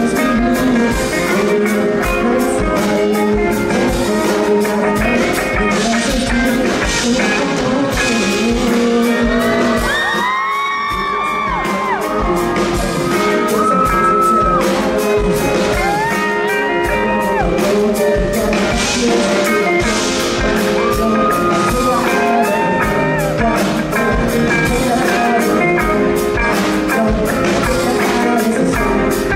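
Live R&B/pop song: a male vocalist singing into a handheld microphone over music with a steady beat, amplified through a PA. About ten seconds in, the low end drops away for a moment under a long, bending sung note.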